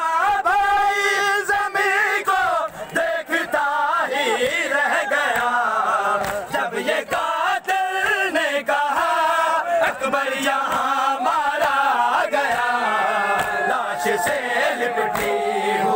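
A crowd of men chanting an Urdu noha (mourning lament) together, loud and continuous, with sharp slaps of hands beating on bare chests (matam) running through it.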